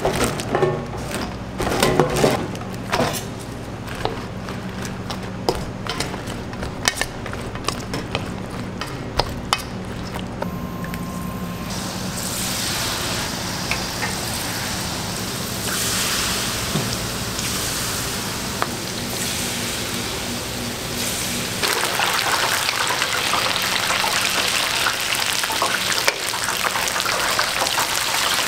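Light knocks and clicks of green chili peppers being handled and dipped in batter, over a steady low hum. About twelve seconds in, battered peppers go into a deep fryer and the hot oil sizzles, growing louder about twenty-two seconds in.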